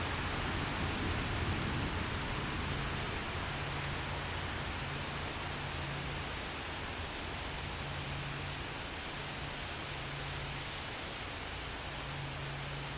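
Steady rain and gusty wind in a thunderstorm, with the last of a thunder rumble dying away in the first couple of seconds.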